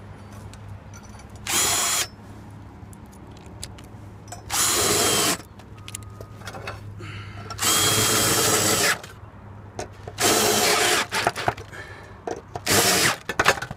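Cordless drill driving screws through a heavy-duty solar-panel tile-roof bracket into the timber roof truss. It runs in five short bursts of about a second or less, one every two to three seconds.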